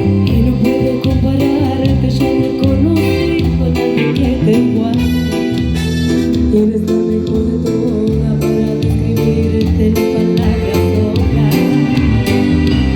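Live band playing amplified music: a repeating bass line, guitar and regular drum hits, with a melody line over them.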